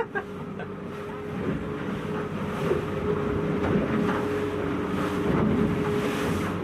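A 7.5 m center cabin boat's engine running steadily under way, with water rushing and splashing against the hull and wind on the microphone. A few short knocks come right at the start.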